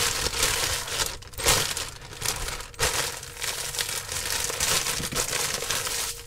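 Plastic zip-lock freezer bag full of instant-coffee sachets crinkling and crackling as it is handled, pressed flat and zipped shut, the sachets rustling against each other inside.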